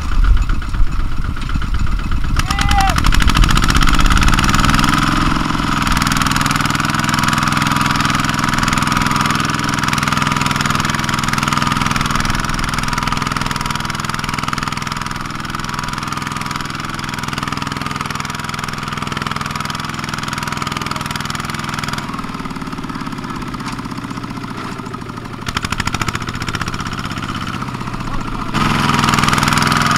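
Kubota ZT-series single-cylinder diesel engine of a two-wheel walking tractor running under load while hauling a loaded rice trailer through mud. It revs up over the first few seconds, runs steadily, eases off for several seconds after about twenty seconds, then picks up again near the end.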